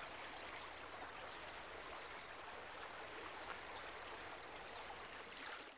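Shallow stream running over rocks, a steady quiet rush of water that cuts off abruptly just before the end.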